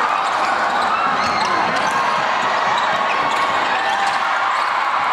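Basketball in play: the ball bouncing on a hardwood court and sneakers squeaking in short rising-and-falling chirps, over a steady crowd hum.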